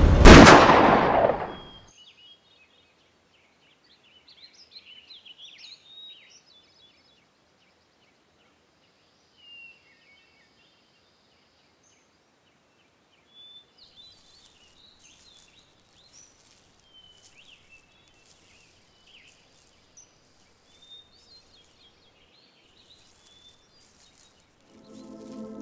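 A single pistol gunshot just after the start, dying away over about a second and a half. Then sparse bird chirps and twitters over a quiet background, with music coming in near the end.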